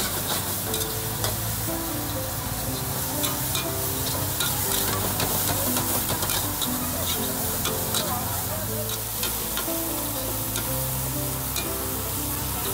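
Meat sizzling as it is stir-fried in an aluminium wok over a gas flame, the metal ladle scraping and clinking against the pan again and again.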